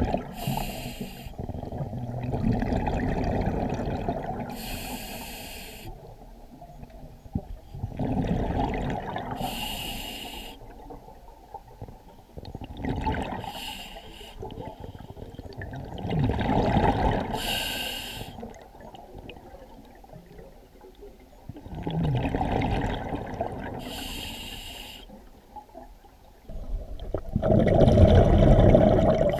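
Scuba diver breathing through a regulator underwater: short hissing inhales and longer rumbling bursts of exhaust bubbles, in a slow, regular rhythm of about one breath every four to five seconds.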